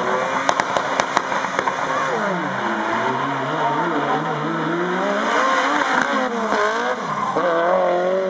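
A Chevrolet Corsa and a Fiat 147 revving at the drag-race start line, with a few sharp pops in the first second or so. They then launch and accelerate hard, the engine note climbing and dropping several times as they run up through the gears.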